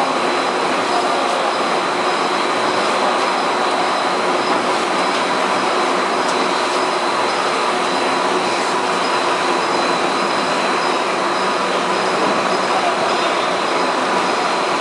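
Veneer peeling line and CNC rotary veneer clipper running: steady, dense machine noise with constant high-pitched whines over it.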